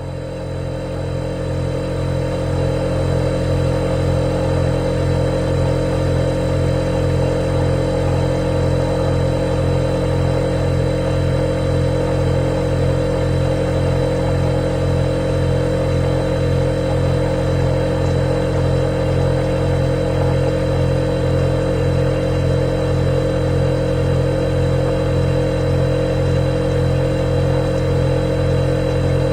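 Refrigerator compressor running with a steady, even hum. It swells up over the first couple of seconds, then holds level.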